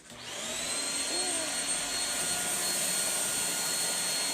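Shark Rocket corded stick vacuum switching on, its motor spinning up over about half a second to a steady high whine over a rushing hiss of suction.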